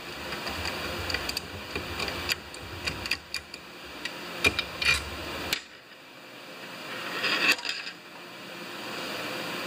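Screwdriver and small metal parts clicking, tapping and scraping as they are handled on a steel workbench, the sharpest taps about halfway through, with a rustle near the end.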